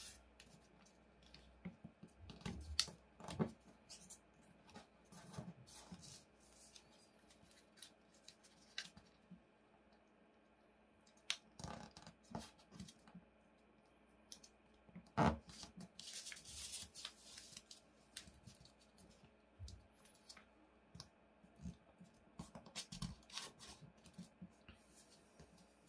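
A sheet of origami paper being folded by hand: soft rustles and paper crinkles, with scattered light taps and clicks as fingers crease the folds flat against the table, one tap a little louder just past halfway.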